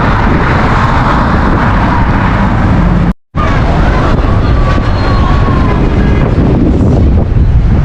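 Strong wind buffeting the camera's microphone, a loud, continuous rumble. The sound cuts out completely for a split second about three seconds in.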